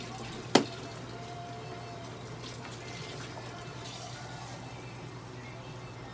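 A single sharp click about half a second in, over a steady low hum.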